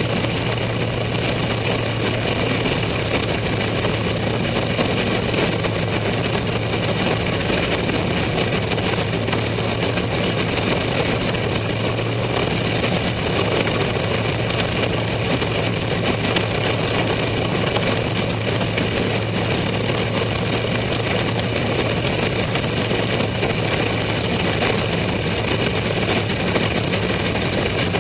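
Sprint car engines running steadily at low revs, an even drone that neither rises nor falls, heard from inside the open cockpit with the car alongside close by.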